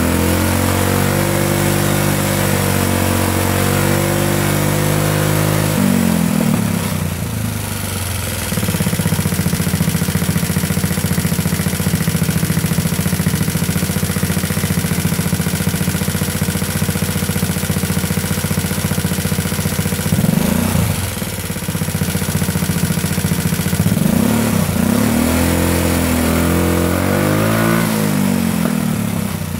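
Big-bore GY6 scooter engine with a free-flow exhaust revved up from a fast idle about six seconds in and held at high RPM, dipping briefly later and rising and falling again near the end. At these revs it runs rich on its 110 main jet, which the owner judges too big.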